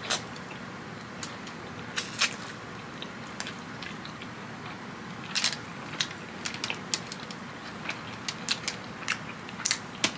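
Close-up eating sounds of crispy fried chicken wings: irregular crunching bites and chewing. There is a sharp crunch near the start, another around two seconds in, a longer crackly crunch about halfway, and many small crunches and smacks after it.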